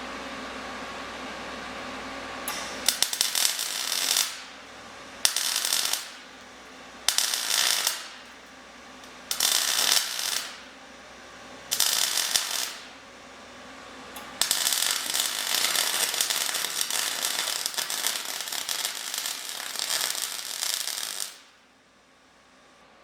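Electric welding arc crackling and sizzling in five short bursts of about a second each, then one longer run of about seven seconds that stops suddenly. It is filling in a hole blown through the steel windshield frame, welding over old braze. A steady hum runs in the first few seconds, before the welding starts.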